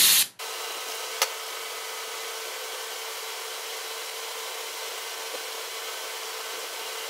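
A blast of compressed air from a blow gun, cleaning out a threaded hole, cuts off sharply in the first half-second. After it comes a steady low hum with one sharp click about a second in.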